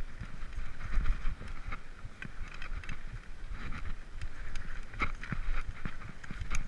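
Mountain bike riding over a rough dirt singletrack: a constant low rumble with many irregular knocks and rattles as the bike jolts over the ground, under a steady hiss.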